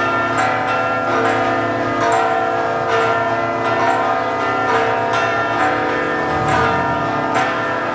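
Church bells ringing a festive peal for the feast procession, struck about once a second, their tones overlapping and lingering.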